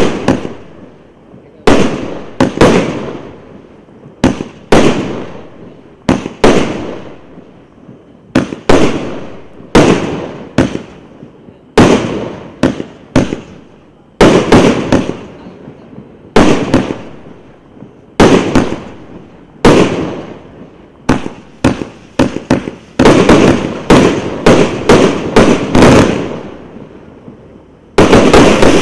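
A 49-shot fireworks cake firing shot after shot: a steady run of sharp bangs, often in close pairs, each trailing off in a crackle. Near the end a loud, continuous crackling hiss sets in.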